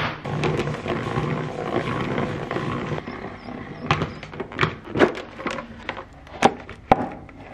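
Plastic salad spinner whirring as it spins washed strawberries to throw off the water, fading after about three seconds. Then a few sharp plastic knocks and clicks as the basket slows and the lid comes off.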